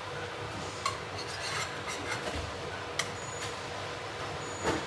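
Kitchen handling noises: rubbing and scraping with a few short, light clicks and knocks, like utensils and dishes being moved about on a counter.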